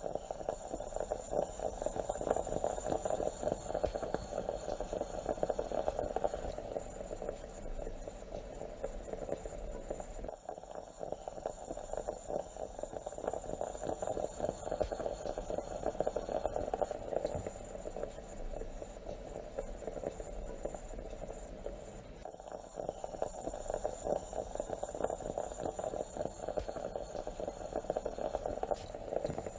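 Stovetop moka pot gurgling and sputtering as the coffee is pushed up into the upper chamber: a dense, steady crackle that shifts abruptly about every twelve seconds.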